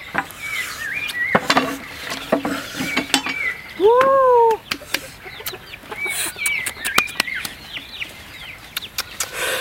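Chickens clucking and calling: many short, repeated chirping calls and one louder drawn-out call that rises and falls about four seconds in, with scattered sharp clicks and knocks.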